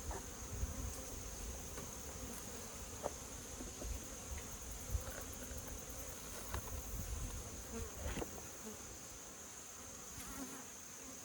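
Honeybees buzzing steadily around an opened hive, with a few faint clicks and knocks as the hive's screens are worked apart.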